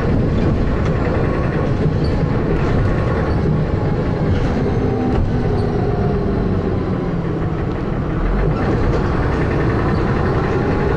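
Dennis Arrow double-decker bus under way: its diesel engine running with heavy thrash and a knocking noise.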